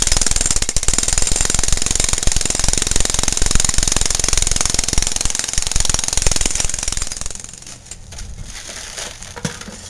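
Jackhammer breaking up a sidewalk, hammering in rapid continuous blows, then stopping about three-quarters of the way through; a few quieter scattered knocks follow.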